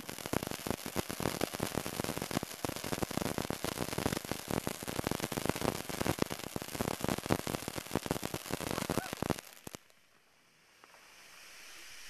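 Ground fountain firework spraying sparks with a dense, loud crackle that cuts off suddenly about nine seconds in; a hiss then rises gradually near the end as the fountain flares up again.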